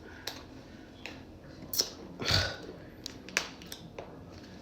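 Small package being pried open by hand: scattered clicks and crinkling rustles, with a louder scraping tear about two seconds in.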